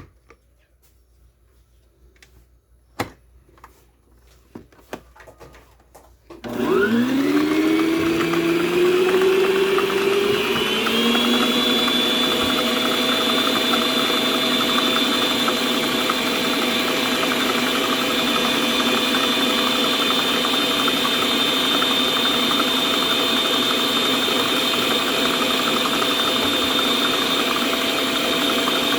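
A few light clicks, then about six seconds in a planetary stand mixer's motor starts up. Its pitch rises over several seconds, then it settles into a steady whine as it creams butter with sugar.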